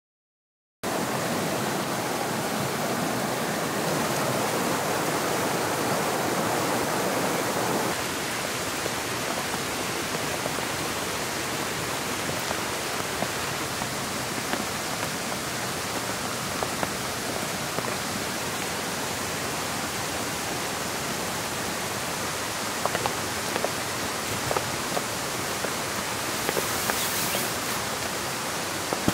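Steady rushing of water that cuts in abruptly about a second in, with scattered sharp ticks over the last several seconds.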